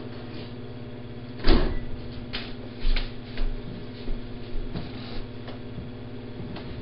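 Steady electrical hum from a home security camera's microphone, with a string of soft knocks and thumps from movement in the room. The loudest knock comes about a second and a half in.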